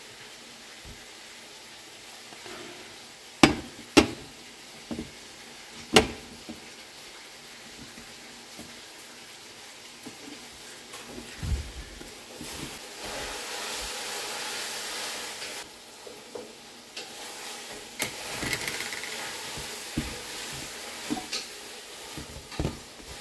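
Hands kneading and pressing a ball of dough on a glass-ceramic cooktop: several sharp knocks against the glass, small clicks and rubbing, with a few seconds of steady hissy rubbing about halfway through.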